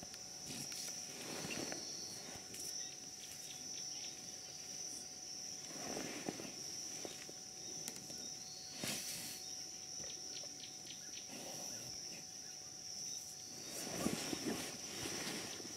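Black rhino calf scuffling and rooting in sawdust, in several separate bouts of rustling, the strongest near the end, over a steady high-pitched drone of insects.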